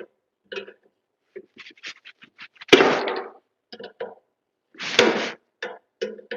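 Tin snips cutting and working sheet metal to open a hole: a run of sharp metallic clicks and clanks, with two louder clanks about three and five seconds in.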